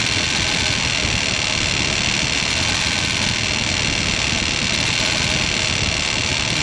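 1999 Ford Explorer's 4.0L V6 engine idling steadily under an open hood, heard up close. The engine has a misfire and is being checked cylinder by cylinder at the coil pack.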